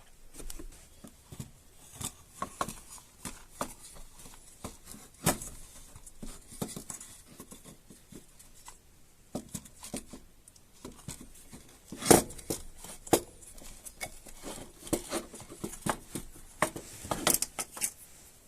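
Hands working on a chainsaw's recoil starter: irregular clicks, knocks and rustling of small plastic and metal parts being handled, with the sharpest knock about twelve seconds in.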